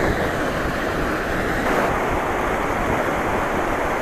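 Fast mountain river rushing over rocks in white-water rapids: a loud, steady rush of water.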